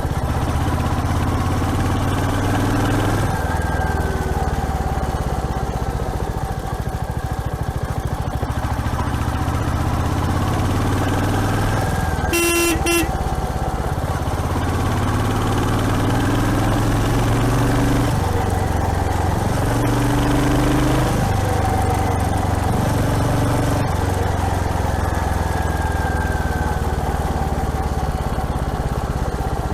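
Royal Enfield Hunter 350's single-cylinder engine running under way, its pitch rising and dropping several times as the speed changes. A horn honks briefly, twice in quick succession, about halfway through.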